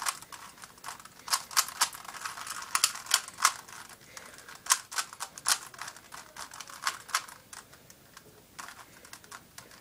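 Plastic Rubik's Cube being turned rapidly by hand: quick, irregular clusters of clicks and clacks as the layers snap round, with a short lull about three-quarters of the way through.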